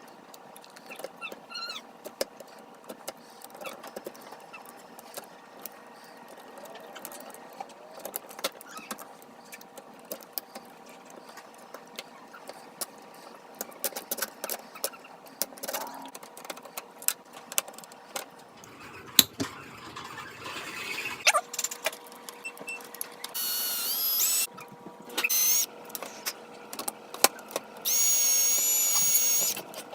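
Small clicks and knocks of tools and screws working on table hinge hardware, then two short runs of an electric drill with a high whine that rises as it spins up, the second run lasting about two seconds.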